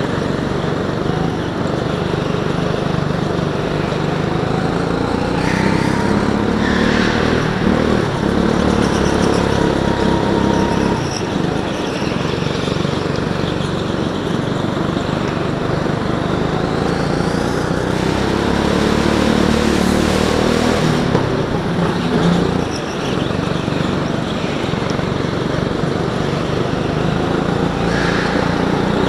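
Go-kart engine running hard, its pitch rising and falling as the driver brakes and accelerates through the corners, with a steady noisy background of running karts.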